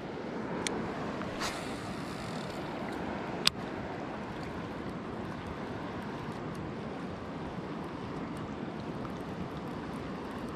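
Steady rushing of a flowing river's current, with a few sharp clicks, the loudest about three and a half seconds in.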